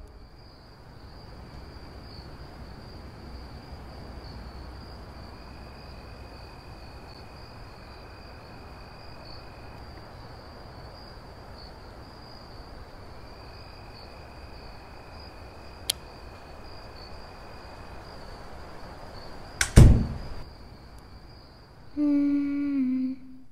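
Quiet night ambience with a steady thin high-pitched tone and a second, higher tone that comes and goes. There is a faint click, then a single loud bang about twenty seconds in, and near the end a low droning tone with a slight waver begins.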